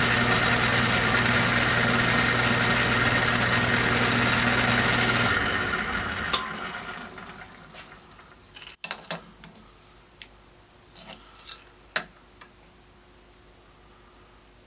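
Electric machine-tool motor running steadily with a low hum, then switched off about five seconds in and spinning down over the next two seconds. Light metallic clicks and clinks follow as tools or parts are handled.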